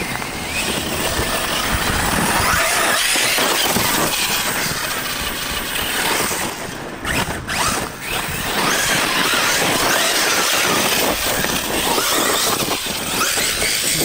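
Arrma Kraton 6S BLX RC truggy driven hard on loose dirt: its brushless motor whines, rising and falling in pitch as the throttle is worked, over the hiss of tyres spinning and throwing dirt. It eases off briefly about halfway through.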